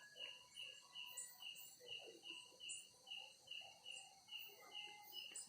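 A cricket chirping faintly and steadily, about three short chirps a second.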